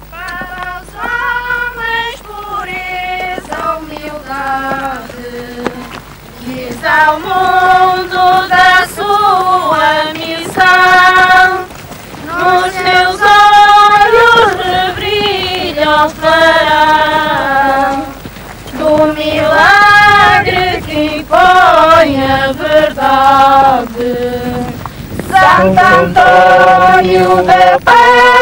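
Women's voices singing a Catholic procession hymn together: slow phrases of long held notes with short breaks between them, louder from about seven seconds in.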